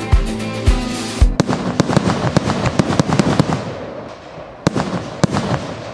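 Music with a steady thudding beat for about a second, then a cut to fireworks going off: a dense crackle of pops and bangs, with a few louder single bangs near the end.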